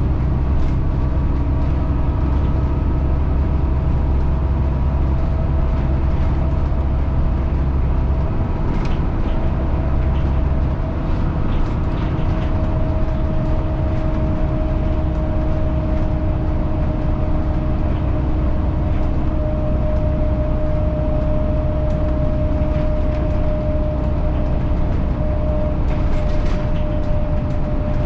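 Inside a LiAZ-5292.60 city bus on the move: a steady low rumble from the drivetrain and road, with a faint steady whine above it.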